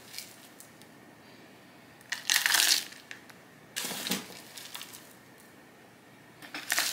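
Hands working a moss pole into a black plastic plant pot: three short scraping, crunching rustles about two, four and six and a half seconds in, with a few faint clicks between.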